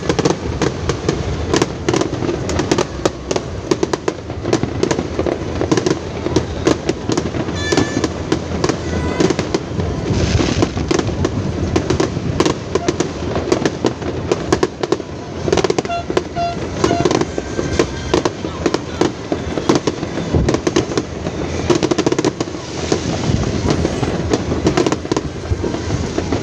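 Fireworks display: a dense, continuous barrage of bangs and crackles going off in rapid, irregular succession.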